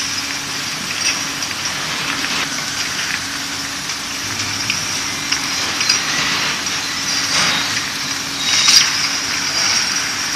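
Automatic glass bottle washer and its infeed conveyor running: a steady machine hum and hiss, with empty glass bottles clinking against each other in many small, irregular clicks. A louder rush of noise comes about eight and a half seconds in.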